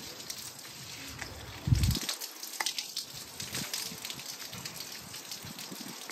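Soapy wash mitt being wiped and squeezed over a motorcycle's wet paintwork, with water running and dripping. There is a dull thump about one and a half seconds in.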